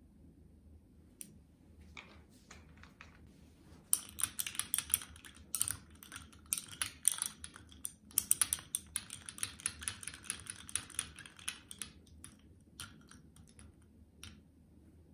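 Ice cubes and a muddler clinking and rattling against a drinking glass as an iced latte is stirred: a rapid run of clinks from about four seconds in to about twelve, then a few single clinks.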